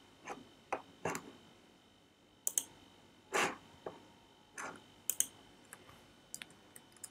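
Quiet, irregular clicking of a computer mouse and keyboard, about a dozen short clicks scattered through the stretch.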